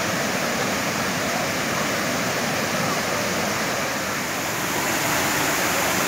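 Krka waterfalls cascading over rock ledges into a pool: a steady rush of falling water, a little louder near the end.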